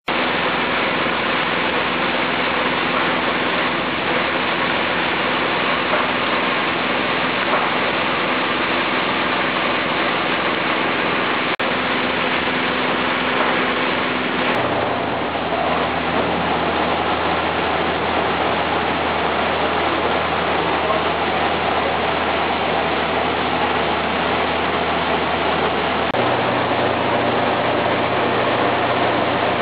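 Coffee dryer running: steady machine noise with a low hum that shifts in pitch about halfway through and again near the end.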